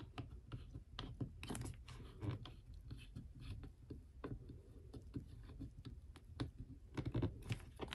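Faint, irregular small clicks and scrapes of a flathead screwdriver turning a screw clockwise into a planner's metal ring mechanism, with light handling of the planner.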